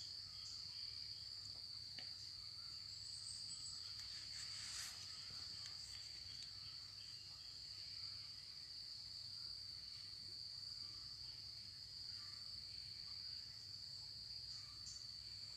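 Faint, steady high-pitched chirring of insects, one unbroken tone, over a low steady hum.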